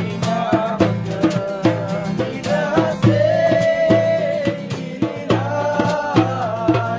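A small hand drum beaten with the palm in a steady, lively rhythm under a sung melody, in a group sing-along.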